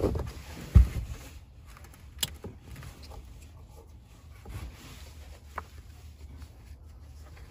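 Handling sounds of a back-seat baby mirror's fabric straps being pulled tight around a car's rear headrest: a thump about a second in, then a few light clicks and rustles as the strap buckle is adjusted, over a low steady rumble.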